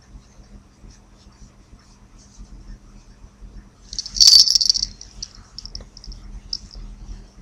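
Small bell on a chihuahua's collar jingling as the dog moves, loudest for about a second just after the middle, then a few lighter jingles.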